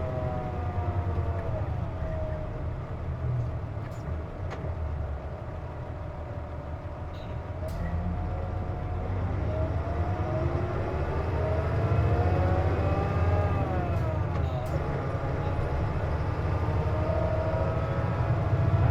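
Inside a Hino Blue Ribbon KC-JP250NTN diesel city bus under way with the air conditioning running, which makes this bus's unusual noise. Engine rumble with a whine that falls as the bus slows, rises as it pulls away about halfway through, drops sharply a little later and then holds steady, with a few sharp rattles.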